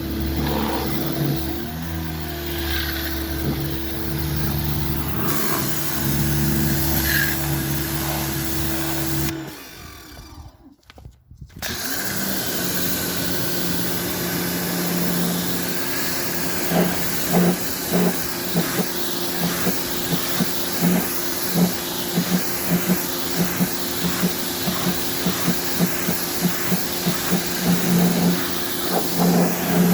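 Pressure washer running and spraying water onto the fins of an air conditioner's condenser coil, a steady motor hum under the hiss of the spray. About ten seconds in the sound drops away for a couple of seconds, then resumes, and in the second half the level jumps up and down in quick uneven spurts.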